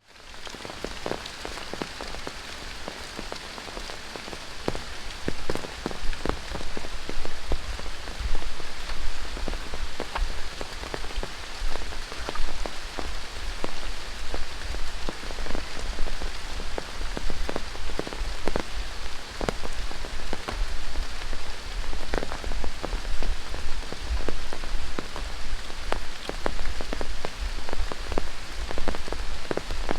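Heavy tropical rain falling through rainforest: a steady hiss of rain with many close, sharp drips and drop impacts. It fades in at the start and is louder from about six seconds in.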